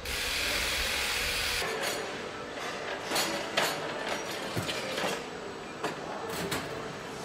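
Assembly-line factory noise: a steady hiss with several sharp metallic clanks and knocks, the rattle of a metal parts trolley loaded with a transmission being wheeled across the floor.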